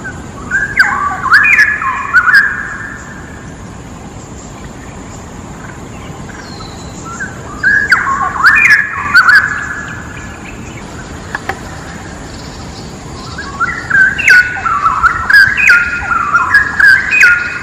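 A bird singing three bursts of quick, stepped chirping notes a few seconds apart, the last burst the longest, over a steady background hiss.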